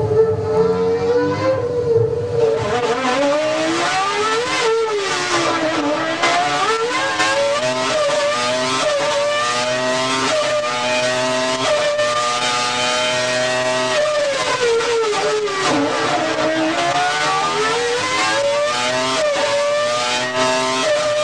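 Renault Formula One racing engine running at high revs, its pitch dropping sharply and climbing back twice, about four seconds in and again about fifteen seconds in.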